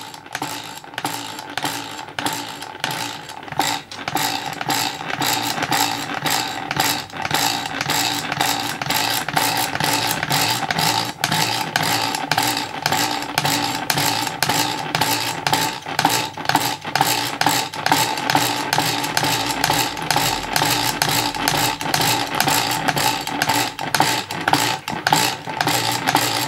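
Scratch-built half beam electromagnet engine running, a steady rhythmic clicking and clatter of its beam, contacts and flywheel over a steady hum. It is only just running, with dirty, grubby contacts and a loose, wobbly frame.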